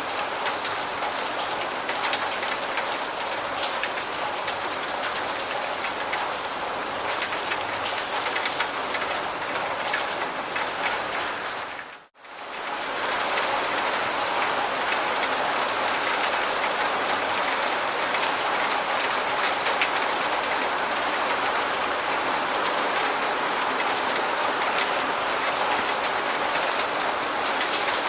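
Steady rain falling on surfaces, with individual drops ticking through the hiss. About twelve seconds in it dips briefly to near silence and fades back up.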